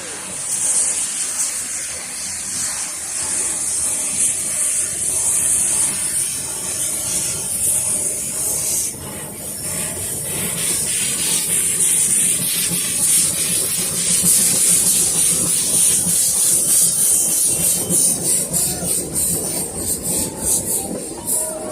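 Two NA-class narrow-gauge steam locomotives, 7A and 8A, double-heading a train past with a loud, steady hiss of steam over a low rumble; sharper regular puffs come through near the end.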